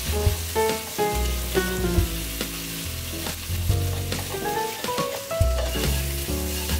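Shell-on Boston lobster pieces sizzling in hot oil and fried garlic in a frying pan, a steady crackling hiss. The pieces are turned with tongs, giving a few light taps and clicks against the pan.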